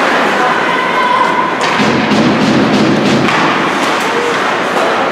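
Ice hockey players and the puck thudding against the rink boards and glass, with a louder rumble of the boards about two seconds in, over the steady noise of skates and the arena.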